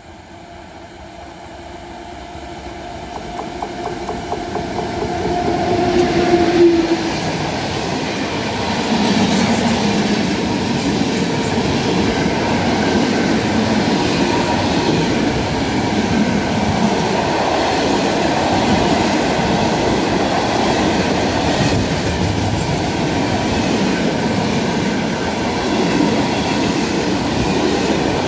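A freight train of tank wagons passing: the locomotive's sound grows steadily louder for about six seconds as it approaches and goes by. Then comes the steady rumble and clickety-clack of the tank wagons' wheels rolling past on the rails.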